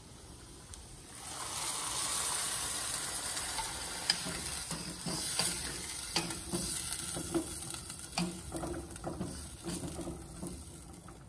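Water poured into a hot pot of beans, dill and garlic frying in olive oil: a sizzling hiss swells about a second in and slowly dies down. From midway, a wooden spoon stirs and knocks against the pot.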